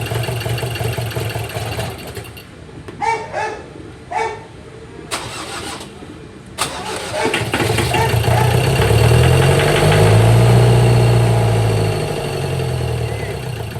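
A vehicle engine running with a steady low hum, quieter for a few seconds with two sharp clicks, then rising in pitch and falling back again over about four seconds near the end.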